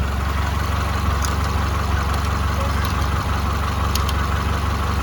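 Honda Accord engine idling steadily under the open hood, with a few faint light ticks over it.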